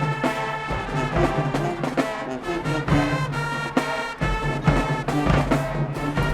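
A high school marching band playing: brass section in full chords over a steady drumline beat.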